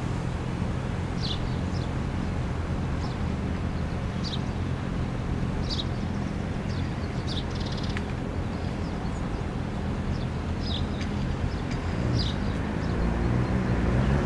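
Short high chirps from chickadees at a nest box, coming irregularly about once a second, over a steady low engine hum. Near the end the engine note starts to rise as a vehicle speeds up.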